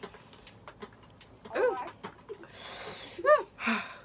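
A person gasping and hissing air in and out through the mouth, with short high cries, from the burn of very spicy noodles. A long hissing breath comes a little after halfway, followed by a quick rising-and-falling yelp and another breathy puff.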